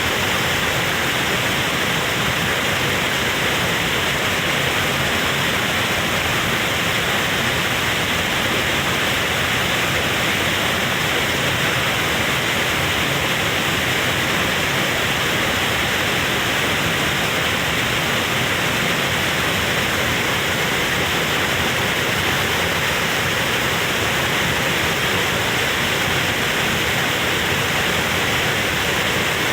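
Waterfall rushing steadily at close range, a loud, even roar of falling water.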